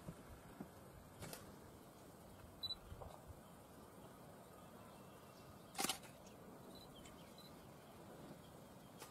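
Near silence: faint outdoor ambience with a few soft clicks and a couple of faint, brief high chirps, the loudest click about six seconds in.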